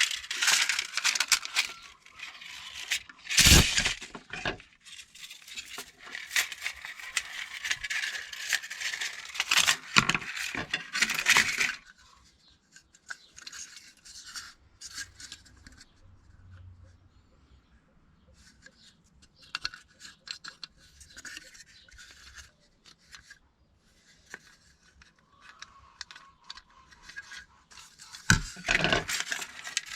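Scraping and rustling with sharp clicks and small clinks, as of objects being handled and moved about; loudest for the first twelve seconds, then fainter scattered clicks, with another burst of rustling near the end.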